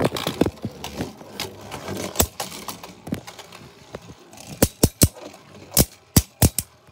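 Two Beyblade Burst spinning tops whirring in a plastic stadium and clacking as they collide, with a run of sharp, separate clacks in the second half.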